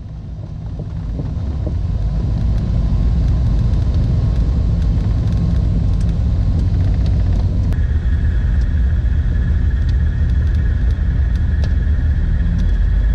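Twin piston engines and propellers of a turbocharged Beechcraft Baron running with a steady low drone, growing louder over the first two seconds. A steady high-pitched tone joins in about eight seconds in.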